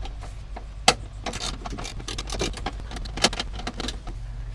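Socket ratchet on 11 mm bolts: short, irregular runs of metallic clicks and clinks as the bolts are undone, over a steady low hum.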